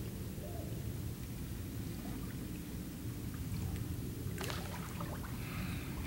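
Light water splashes and drips around a kayak over a low steady rumble, with a sharper splash about four and a half seconds in.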